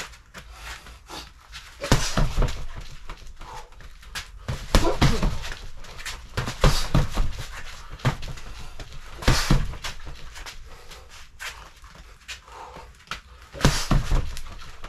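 Punches landing on a Century BOB freestanding body-opponent dummy in short flurries of several thuds, about five combinations a few seconds apart, with the boxer's hard breathing between them.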